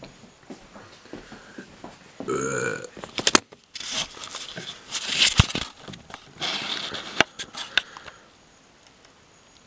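A person burping about two seconds in, followed by a few sharp clicks and knocks and several stretches of hissing, breathy noise.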